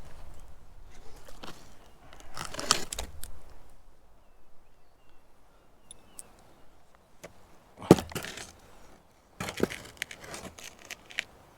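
Scattered knocks and clatter from handling plumbing pipe and tools, in three bursts: about two and a half seconds in, about eight seconds in (the sharpest), and again a little after nine and a half seconds.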